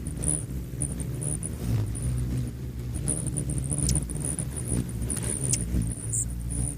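Hummingbird wings humming, a steady low drone, with short high chirps repeated over it that come thicker in the second half.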